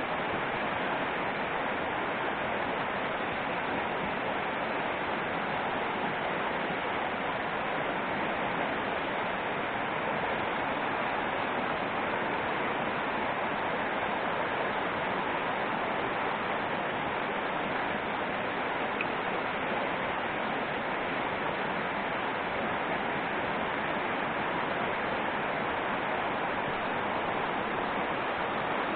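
Mountain stream running over rocks and small rapids: a steady, even rush of water.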